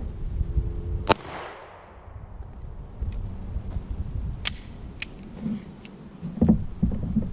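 A single handgun shot about a second in, with a short echo trailing after it, followed later by a few lighter clicks and a dull knock.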